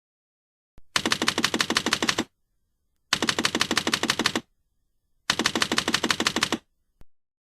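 A sound effect of rapid-fire rattling: three bursts of sharp, evenly spaced strokes at about eleven a second, each burst lasting a little over a second, separated by dead silence, with a single faint click just before the first burst and another just after the last.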